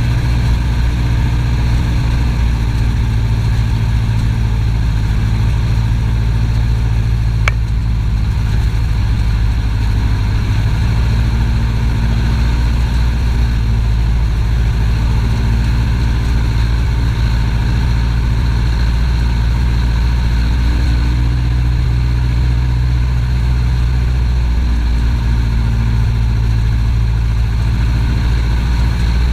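Piper PA-18 Super Cub seaplane's piston engine and propeller running steadily at low power while taxiing on the water, heard from inside the cockpit. A single sharp click about seven and a half seconds in.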